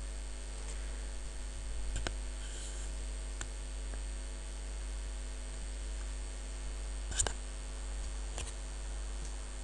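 Steady electrical mains hum, with a few faint clicks scattered through it, the loudest about seven seconds in.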